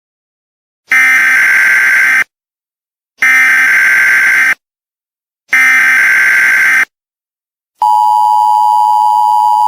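Emergency Alert System warning: three harsh, raspy data-burst buzzes, each a little over a second long with about a second's pause between them, then a steady two-tone attention signal that starts near the end.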